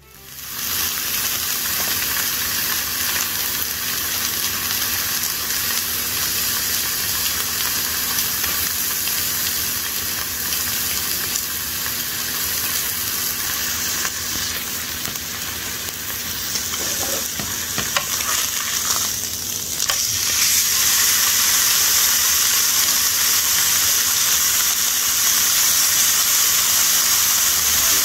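Slices of beef searing on a hot griddle pan, sizzling steadily with a dense hiss. The sizzle grows louder about two-thirds of the way through.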